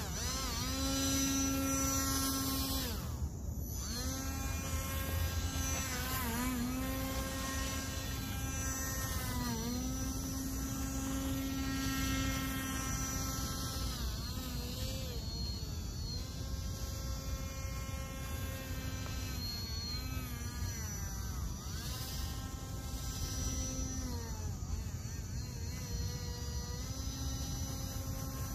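Radio-controlled model airboat's electric motor spinning its caged air propeller: a steady high whine that sags in pitch and picks back up several times as the throttle is eased and opened again.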